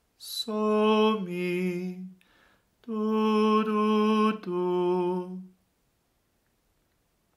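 A single voice sings the solfa pattern so–mi twice: a held higher note falling to a lower one, a minor third down, each note lasting about a second.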